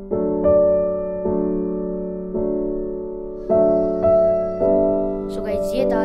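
Slow background music of soft piano chords, a new chord struck every second or so and left to fade. A person's voice starts over it near the end.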